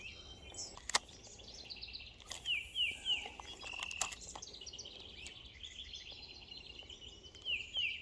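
Songbirds calling and singing over low outdoor background noise, with repeated chirps and twice a quick run of three downward-slurred notes. A single sharp click sounds about a second in.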